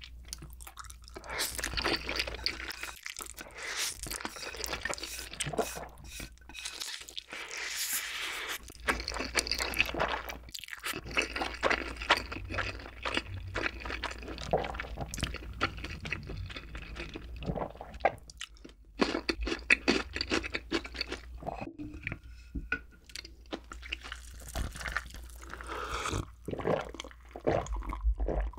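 Close-miked eating sounds of black bean sauce instant noodles (jjapaghetti): wet slurping and chewing with many small smacking clicks. Near the end, gulps of a drink from a glass jar.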